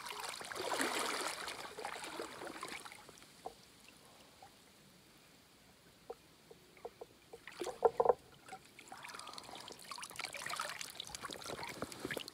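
Shallow river water splashing and sloshing as a barbel is handled and lifted out by hand, quieter in the middle. A few sharp splashes or knocks come about eight seconds in and are the loudest part.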